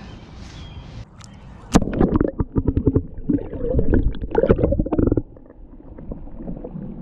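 Water splashing and gurgling right at the microphone, mixed with sharp knocks of handling, as a striped bass is let go over the side of a boat. It starts about two seconds in and stops abruptly just after five seconds, leaving a low hum.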